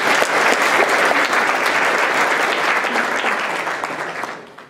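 An audience applauding after a talk: many hands clapping steadily, dying away near the end.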